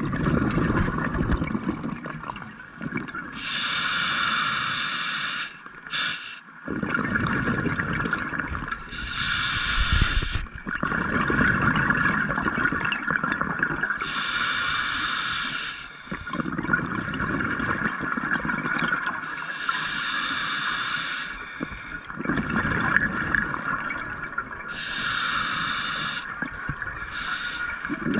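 Scuba diver breathing through an open-circuit regulator underwater: a hissing inhale, then a longer low bubbling exhale, repeating about every five or six seconds. A steady high hum runs underneath.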